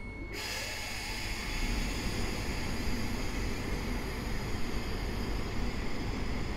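EP07P electric locomotive starting off with its train: a steady rushing noise comes on suddenly just after the start, over a low rumble, with a short rising whine at the very beginning.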